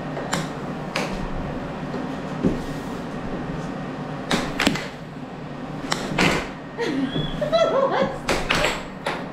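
Air hockey puck knocking against the table and its rails several times, mostly in quick pairs, over the steady hum of the table's air blower. A brief wavering pitched sound comes about three-quarters of the way through.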